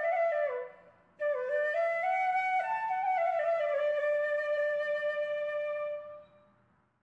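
Background music: a solo flute melody. One phrase ends about half a second in; after a short gap a new phrase with gliding notes settles on a long held note that fades out near the end.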